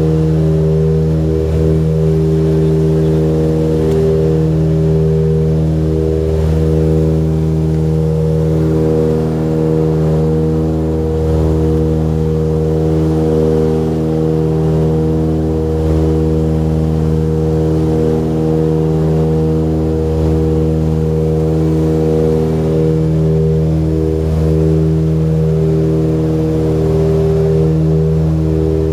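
Propeller aircraft's engine and propeller heard from inside the cabin in cruising flight: a loud, steady drone with a slow, wavering throb.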